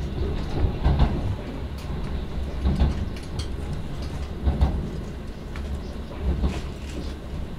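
Interior running noise of an electric commuter train at speed: a steady low rumble from the wheels and running gear, with a knock from the wheels on the track about every two seconds.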